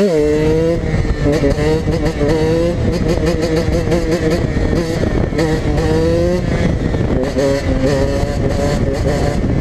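KTM EXC 125 two-stroke dirt bike engine revving while riding, worked with short partial-throttle blips for a 'tune game' sound. Its pitch drops sharply right at the start, then holds and rises and falls a few times.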